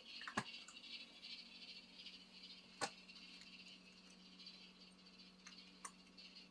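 A cat making faint, continuous raspy crackling, with three sharp clicks about half a second in, near three seconds and near six seconds.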